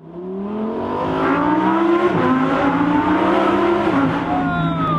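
Lamborghini Huracán Performante Spyder's naturally aspirated V10 accelerating, its pitch climbing and then dropping at gear changes about two seconds in and again about four seconds in, with a falling pitch near the end.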